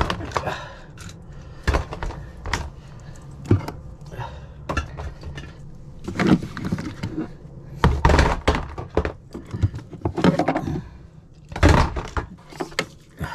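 Plastic spray bottles and aerosol cans knocking and clattering against each other and the cabinet shelf as they are handled and lifted out, in a string of separate knocks and short rattles.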